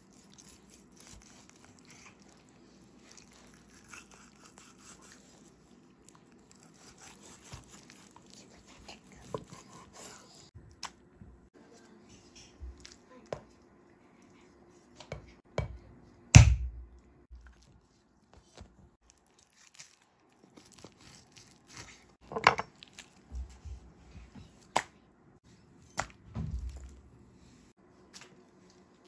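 Knife slicing through raw beef with soft tearing and scraping, then a cleaver chopping the meat on a wooden cutting board in a handful of separate sharp knocks, the loudest about halfway through and several more near the end.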